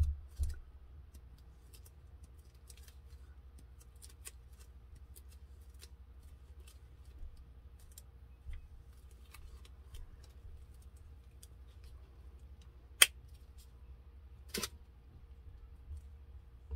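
Faint scattered clicks and light taps of glitter-crafting supplies being handled, with two sharper clicks about a second and a half apart near the end, over a low steady hum.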